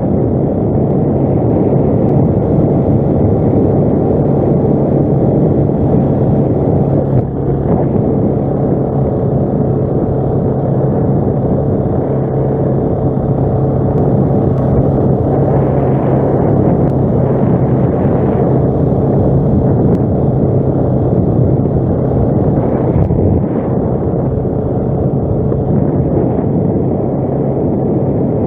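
ATV engine running steadily under way, with a strong low hum.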